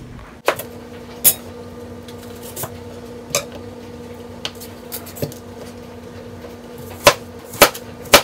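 Chef's knife slicing apples and striking a plastic cutting board: about nine sharp knocks at irregular intervals, the loudest coming close together near the end, over a faint steady hum.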